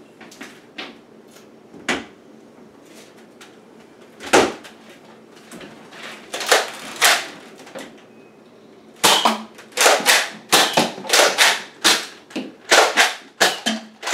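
Toy blaster being worked and fired: sharp plastic clicks and snaps, a few scattered at first, then a quick string of them at about two a second from about two-thirds of the way through.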